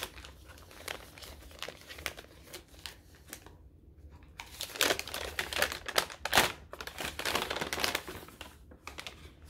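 Hands unwrapping a small wrapped advent calendar package, the wrapping crinkling and tearing in irregular handling. It is sparse at first, pauses briefly, then gets busier and louder around the middle.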